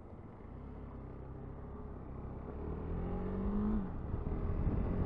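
KTM 390 Adventure's single-cylinder engine pulling hard under acceleration, its note rising in pitch and getting louder, dropping at an upshift just before four seconds in.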